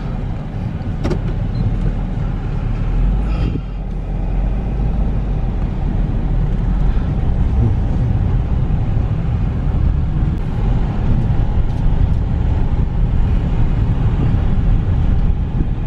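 A vehicle engine running steadily while under way: a continuous low rumble with no breaks.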